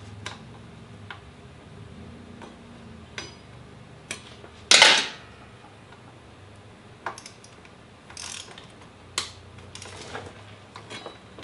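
Hand tools being handled during work on a motorcycle's front wheel: scattered light clicks and taps, with one louder, noisier clatter about half a second long near the middle.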